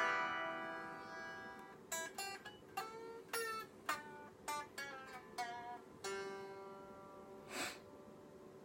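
Electric guitar strings picked with the amp not sounding, because the signal chain isn't working: a chord rings out and decays, then a run of about nine single plucked notes follows, and a short scrape comes near the end.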